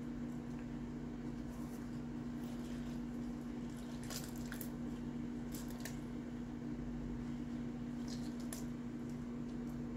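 A lemon being squeezed in a hand-held plastic citrus squeezer: scattered short, wet squishes and crackles, bunched around four to six seconds in and again near eight seconds, over a steady low hum.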